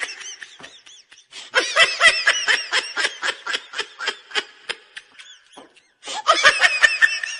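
Laughter sound effect: rapid, high-pitched bursts of laughing in bouts, a long one in the middle and another starting near the end.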